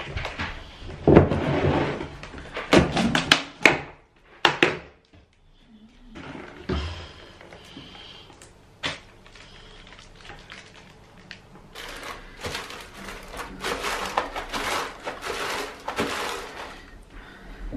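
Plastic lid of a tub of thick white wall paint being prised open with a run of clicks and knocks, then the paint tipped out into a roller tray. Near the end a paint roller is rolled back and forth through the paint in a bin-bag-lined tray, a wet rustling.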